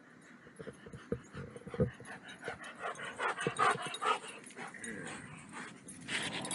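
A Chesapeake Bay retriever making a string of short, irregular sounds, mixed with clicks and knocks, starting about half a second in.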